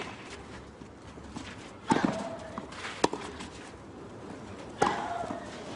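Tennis rally: rackets striking the ball in sharp cracks every second or two, with a player's short grunt on two of the shots.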